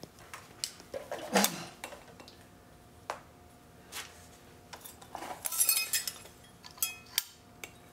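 Scattered light clicks and clinks, with a cluster of tinkling, ringing strikes about five and a half seconds in: a fallen work lamp and the pieces of its broken glass bulb being handled.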